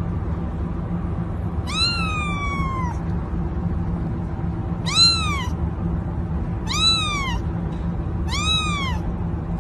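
A baby kitten meowing four times in high-pitched cries that rise and then fall. The first cry is longer and trails off slowly. A steady low background hum runs underneath.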